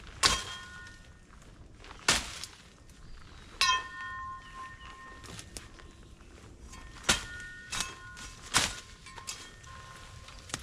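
A machete chopping through brush: about six sharp strikes at uneven intervals, several of them followed by a brief metallic ring from the blade.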